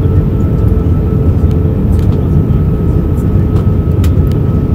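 Steady, loud cabin noise inside an Airbus A321 airliner in flight: a deep, even rumble of engines and airflow, with a faint steady hum from the turbofans running through it.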